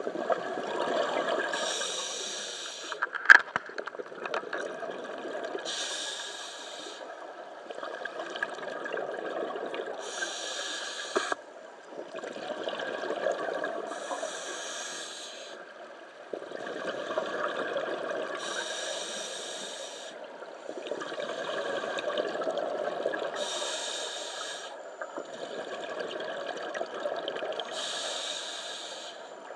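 Scuba diver breathing through a regulator underwater: a short hiss about every four seconds alternating with longer stretches of bubbling exhaust. There is a sharp knock about three seconds in.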